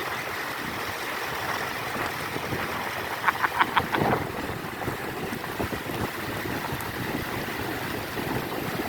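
Steady rushing noise of wind buffeting the microphone, with a quick run of about five sharp clicks a little over three seconds in.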